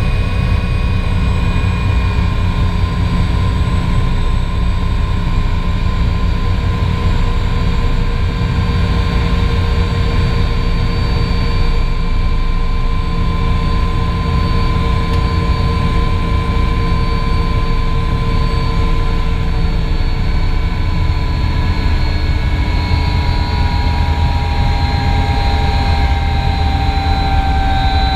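Sikorsky S-58T helicopter's Pratt & Whitney PT6T Twin-Pac turboshaft engines and rotor running on the ground, heard inside the cockpit: a steady turbine whine over a low rumble. Near the end the whine starts to fall in pitch as the engines begin to wind down for shutdown.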